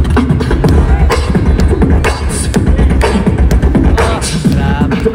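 Live beatboxing through a concert sound system: deep bass beats with sharp snare-like clicks and a few pitched vocal sounds, made by mouth into a microphone.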